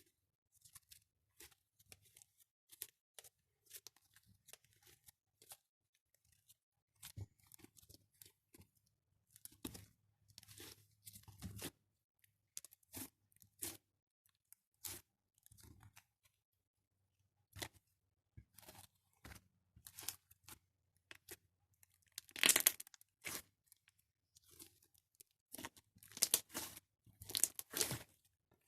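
Slime being squeezed and poked by hand, making irregular sticky crackles and pops, with louder bursts of crackling late on.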